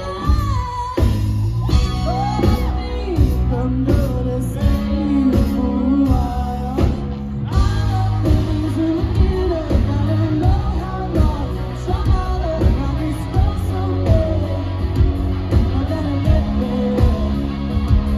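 A rock band playing live, with electric guitars, bass and drums under a woman's lead vocal.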